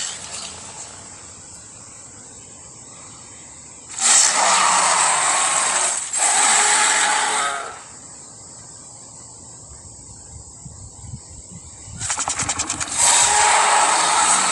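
Spinosaurus creature vocalisations from an animated series' sound design: two long roars, each lasting about two seconds, starting about four seconds in. Near the end comes a fast pulsing rattle, then another long roar. A steady high hiss of background ambience runs underneath.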